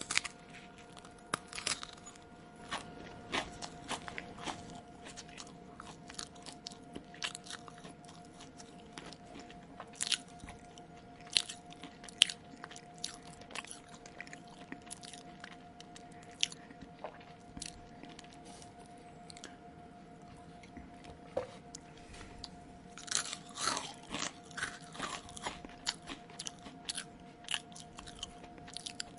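Close-miked chewing: irregular crisp crunches and wet mouth clicks as food is bitten and chewed, with a denser run of crunching about three-quarters of the way through. A faint steady hum runs underneath.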